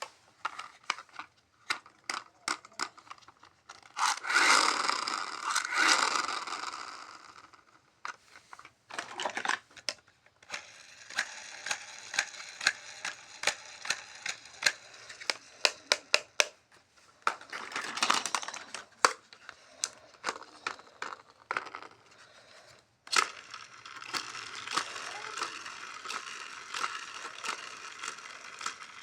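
Toys and packaging being handled during an unboxing: many sharp plastic clicks and taps, with louder rustling and tearing of packaging a few seconds in and again about two-thirds of the way through. Long stretches of a steady whirring hiss sit under the clicks.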